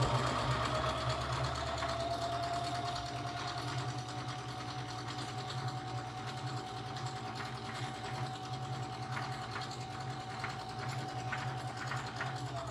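Domestic electric sewing machine running steadily as it stitches through fabric, its motor whine holding one pitch over a rapid needle rhythm; the motor eases off slightly near the end.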